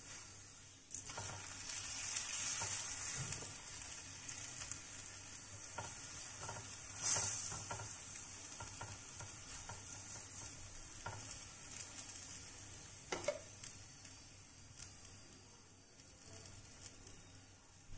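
Aloo paratha sizzling as it fries in fat on a hot iron tawa, a steady hiss that starts about a second in and flares up loudly about seven seconds in. A couple of sharp clicks, like a spoon against the tawa, come near thirteen seconds.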